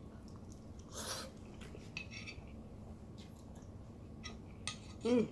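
Quiet eating from a bowl: a few light clicks of a utensil against the bowl, a short rush of breath about a second in, and a brief hum near the end.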